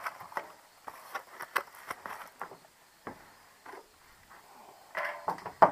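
Scattered light clicks, taps and rustling of small hardware and plastic packaging being handled on a wrought-iron mesh table, with a louder knock just before the end.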